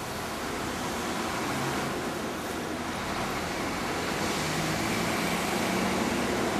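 Shinkansen series 300 train approaching the platform, its rolling noise growing steadily louder, with a faint steady whine coming in about halfway.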